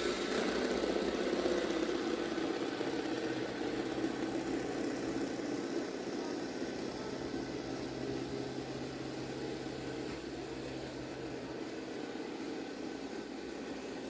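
Robot vacuum running with a steady motor hum and a whirring brush; a low tone in the hum comes in a few seconds in and drops out near the end.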